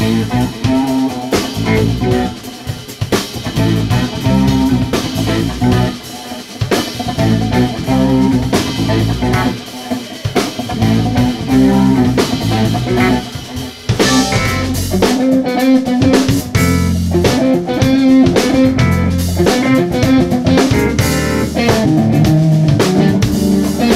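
Live instrumental jazz-fusion band playing: electric guitar lead over drum kit, bass and keyboards. About halfway through the band gets louder and fuller, with a cymbal crash.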